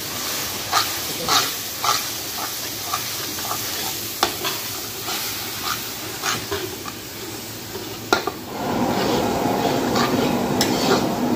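A long metal ladle scraping and clinking against a large wok as chopped tomatoes and onion are stirred and fried, with a sizzle underneath. About eight and a half seconds in, a louder steady rushing hum comes in under the stirring.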